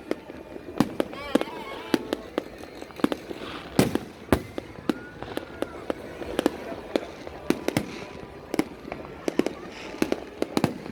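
Fireworks going off: a rapid, irregular run of sharp bangs and pops, with a couple of louder bangs about four seconds in.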